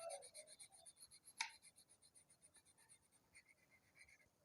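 Faint scratching of black colouring being shaded onto a paper worksheet in quick back-and-forth strokes, with a single sharp click about a second and a half in. The strokes die away after about two seconds.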